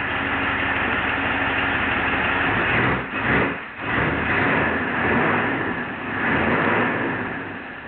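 The 1957 Ford Thunderbird's 312 Y-block V8 idles steadily, then is revved in short blips about three seconds in and again around four to six seconds, dropping back each time. To the people listening it sounds healthy.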